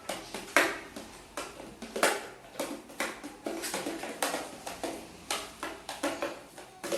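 A slime mixture being stirred in a bowl with a spoon: repeated scrapes and clinks, about two a second.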